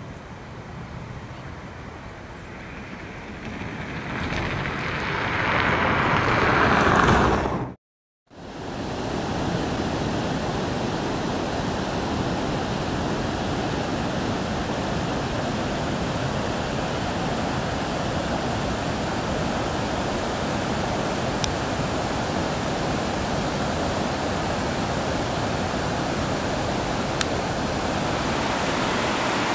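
Steady rushing of a mountain river. Before it, a swelling rush of noise builds to a peak and cuts off abruptly about eight seconds in.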